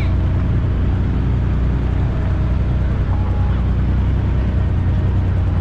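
Off-road vehicle engine running steadily at low speed: a constant deep drone with no revving.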